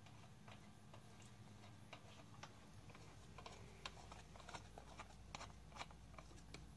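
Near silence with faint, irregular small clicks and ticks: a spark plug being threaded by hand into the gas engine of a Losi MTXL RC monster truck.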